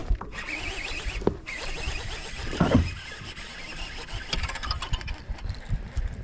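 Fishing reel whirring and clicking as a hooked fish is fought on a bent baitcasting rod, with a warbling whir over the first second and a half and a loud thump about two and a half seconds in.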